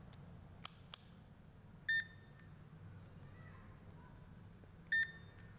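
A DEKKO DM-148T digital multimeter's buzzer beeping twice, two short beeps about three seconds apart, as the meter is set up. Two faint clicks of the meter being handled come just before the first beep.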